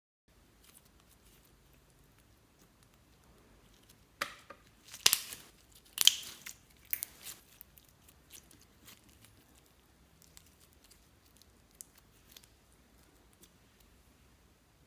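Slime being worked by hand: a cluster of sharp sticky crackles and pops from about four to seven seconds in, then only scattered faint clicks.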